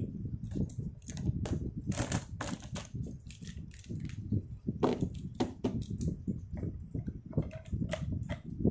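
Plastic felt-tip marker pens clicking and rattling against each other as a hand gathers them up and handles them on a desk, in many short irregular clicks over a low rumble of handling.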